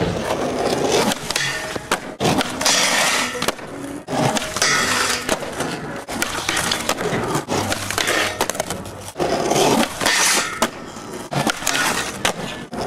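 Skateboard sounds: polyurethane wheels rolling on concrete, several sharp wooden clacks of ollies and landings, and stretches of scraping as the board grinds or slides along a metal flatbar.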